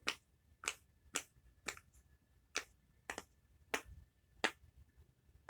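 Silicone pop-it fidget being popped: a series of short, sharp pops about every half second, eight or nine in all.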